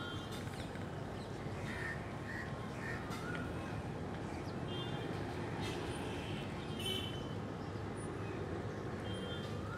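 Crows cawing several times, the calls spread through, over a steady low background noise.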